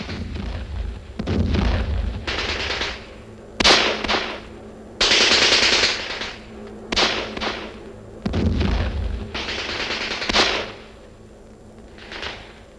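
Repeated bursts of automatic gunfire, several in a row, each lasting about a second with quieter gaps between.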